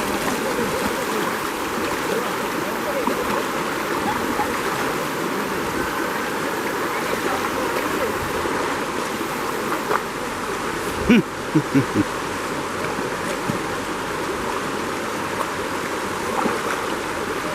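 River water rushing steadily over rocks. A few short voice-like sounds come about eleven seconds in.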